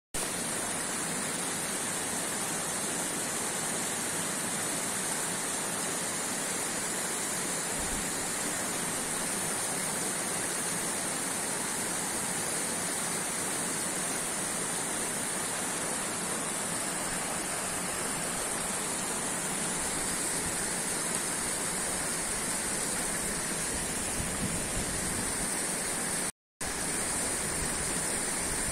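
Small mountain waterfall falling onto rocks: a steady rushing hiss of water, broken off for a split second near the end.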